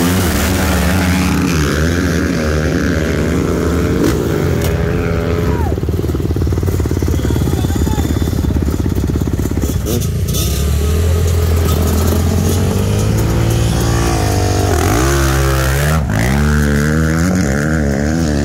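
Dirt bike engines running close by, idling and being revved, the pitch rising and falling in throttle blips near the start and again in the last few seconds.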